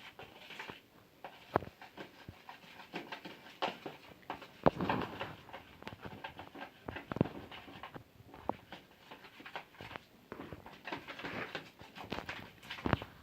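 A spoon stirring a sticky mix of white glue, fabric softener and shaving foam in a container: irregular squelches with clicks and taps of the spoon against the pot.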